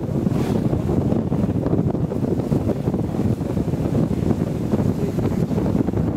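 Wind buffeting the microphone on the deck of a sailing boat under way, a steady low rumbling noise with no lulls.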